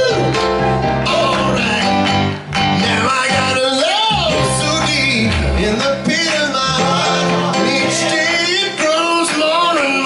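Male vocal quartet singing a soul song live, with gliding vocal runs over a band of drums, electric guitar and keyboard.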